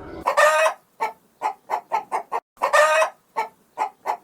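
Chicken cackling: two long, loud squawks, each followed by a run of short clucks at about three to four a second.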